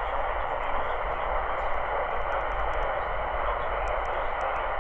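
Steady radio static hiss from a NOAA weather radio receiver, with a low hum underneath and no clear voice coming through.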